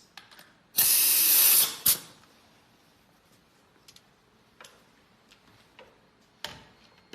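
Compressed air hissing in a loud burst for about a second as the air hose is coupled to a Woodpecker N7116S pneumatic staple gun, ending in a click as the coupling seats. A few faint clicks follow, and a sharper knock comes near the end.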